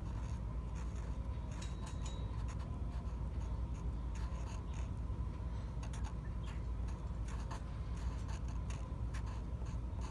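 Felt-tip Sharpie marker writing on paper: many short, irregular scratchy strokes as letters are drawn, over a steady low hum.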